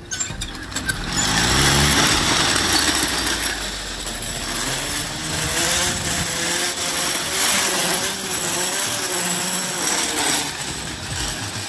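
Roller slide's steel rollers spinning under a rider going down fast: a loud, continuous rattle, with a hum that wavers in pitch as the speed changes.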